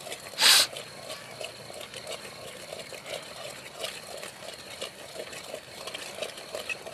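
Spice masala frying in oil in a metal pot, stirred with a metal spoon: a run of soft irregular scrapes and sizzle, with one short, loud hiss-like burst about half a second in.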